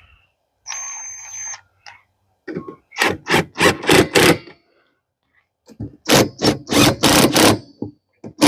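Ratchet wrench tightening the wiper arm nuts, worked in two runs of quick strokes about four a second, with a brief hiss about a second in.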